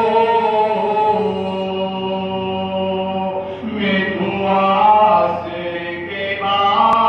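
A man chanting a noha, an Urdu lament, unaccompanied into a microphone, in long held notes that bend from one pitch to the next.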